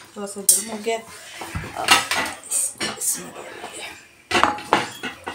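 Kitchen utensils and dishes clinking and clattering: about five sharp knocks of metal and crockery, spread over a few seconds.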